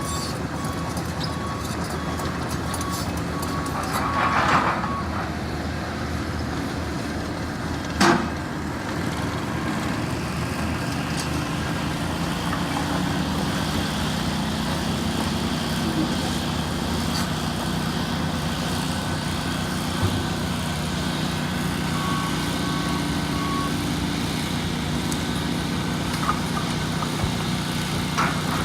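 Heavy construction equipment and trucks running with a steady diesel hum, and a sharp metallic clank about eight seconds in. Near the end a reversing alarm gives three short beeps.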